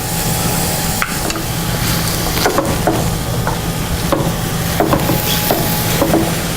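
Egg-roll filling of chicken and vegetables sizzling in a pan while a spoon stirs it, with irregular clicks and scrapes of the spoon against the pan over a steady low hum.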